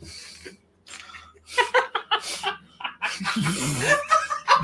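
Breathy laughter and chuckling, mixed with a few indistinct half-spoken sounds.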